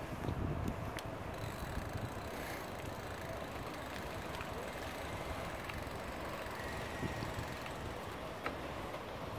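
Bicycle riding noise picked up by a smartphone on a bike-mounted gimbal: a steady low rumble of wind on the microphone and rolling tyres, with a few small clicks and rattles.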